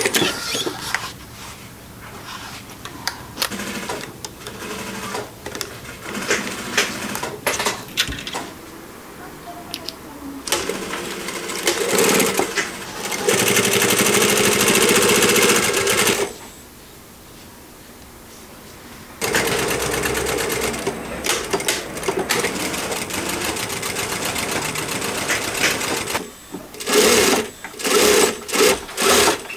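JUKI industrial lockstitch sewing machine stitching fabric in runs, with light handling clicks at first. Two long steady runs of stitching are separated by a pause of a few seconds midway, and near the end the machine starts and stops in short bursts as the seam is guided.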